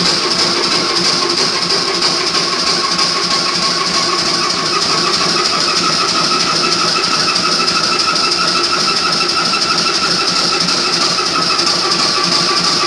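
Crossley OE1 stationary oil engine running steadily, its mechanism making a fast, even rhythmic beat.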